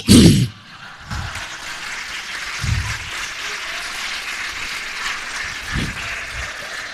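Audience applauding a stand-up comedian's punchline, a steady clapping that sets in about a second in, just after the comedian's voice cuts off.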